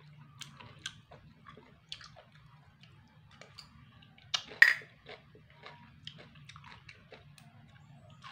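Close-up chewing of a spicy pounded cucumber salad with snails, with small wet clicks and crunches from the mouth over a faint low hum. One louder clatter comes about four and a half seconds in.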